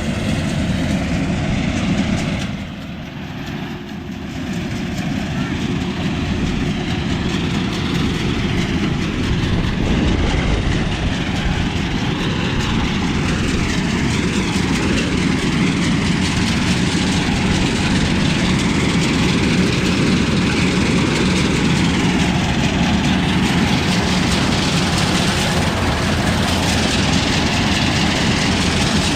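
Heavy engine running steadily, with a brief drop in level about three seconds in.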